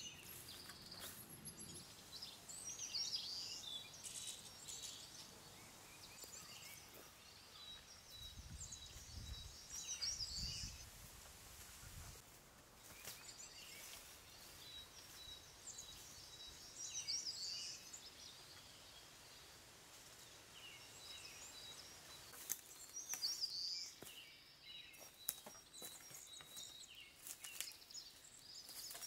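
Faint woodland ambience with birds chirping at intervals, and a thin steady high tone. Scattered soft footsteps and rustles on leaf litter.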